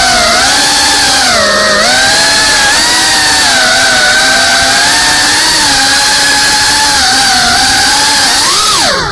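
FPV drone's electric motors and propellers whining, the pitch wavering up and down with the throttle. Near the end the whine dips sharply in pitch and climbs back.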